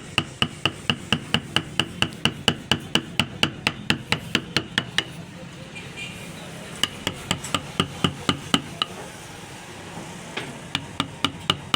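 A hammer striking rapidly and steadily, about four blows a second, each blow with a bright metallic ring. The blows come in three runs, with a short pause about five seconds in and another about nine seconds in.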